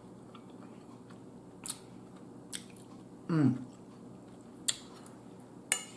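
A person chewing a mouthful of food close to the microphone: a few sharp wet mouth clicks and smacks. About three seconds in comes a short falling hum of the voice.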